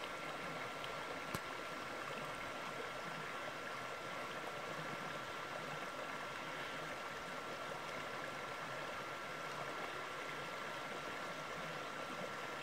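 Small rocky mountain stream babbling over stones and shallow riffles: a steady, gentle rush of water.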